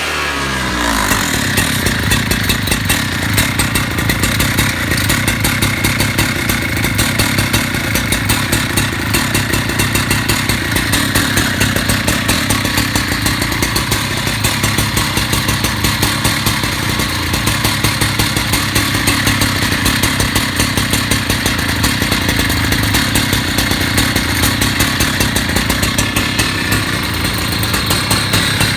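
Petrol engine of a Husqvarna concrete cutting saw running steadily. Its speed drops right at the start and it then holds an even, rapid beat.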